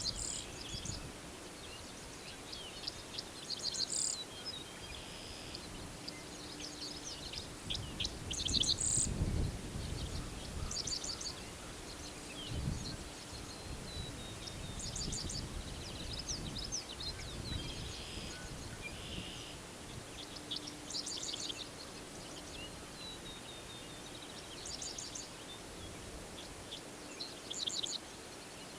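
Several songbirds singing and calling in grassland: repeated high trills and chirps that overlap one another, with a few low rumbles, mainly in the middle.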